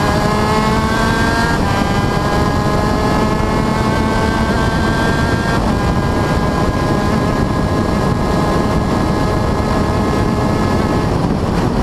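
TM KZ10B 125cc two-stroke shifter kart engine at full throttle, its note climbing and dropping back at upshifts about one and a half seconds and five and a half seconds in, then rising more slowly before the note changes near the end. Heavy rushing noise from the airflow lies under it.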